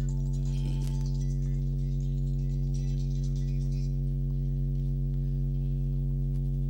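Steady electrical mains hum, a low buzz with a strong base tone and a ladder of overtones, holding unchanged throughout.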